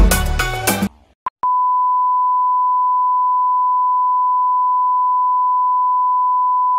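Background music cuts off about a second in; after a short blip, a single steady beep tone sounds: the test tone that goes with TV colour bars.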